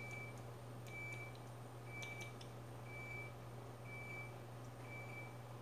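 Faint electronic beep repeating about once a second, each beep short and at one steady pitch, over a steady low hum, with a few soft clicks.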